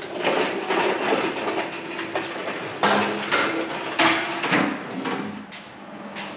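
Metal parts clanking and knocking, with a run of sharp knocks, two louder strikes about three and four seconds in, and brief ringing after some of them.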